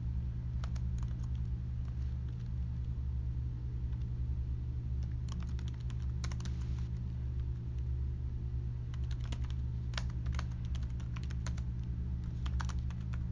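Typing on a computer keyboard in three short runs of keystrokes with pauses between, over a steady low hum.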